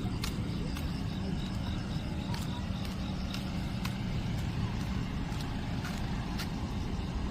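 Steady low outdoor rumble, with faint, irregular clicks scattered through it.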